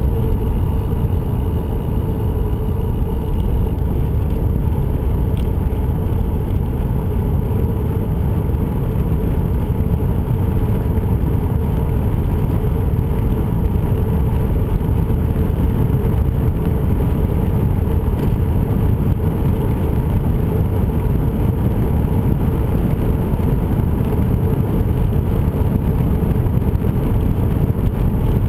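Steady low rumble of wind buffeting a moving camera's microphone, mixed with rolling noise from travelling along a paved trail, with a faint steady hum underneath.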